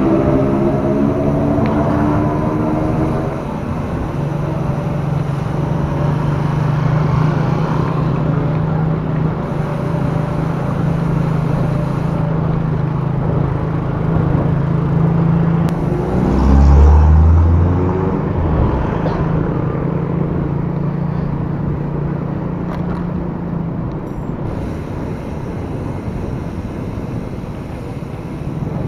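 Motorcycle engine running at a steady cruise under wind and road noise, its tone shifting in the first few seconds and then holding steady. About two-thirds of the way in there is a brief low thump with a short rise and fall in engine pitch, and the drone eases off near the end.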